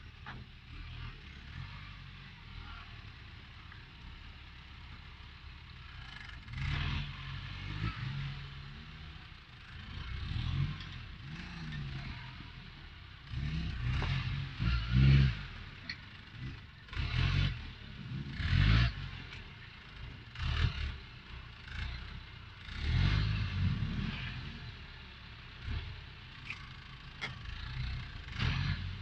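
An off-road 4x4's engine running low and revving up in repeated bursts as it crawls over rocks, with knocks and clatter between the revs.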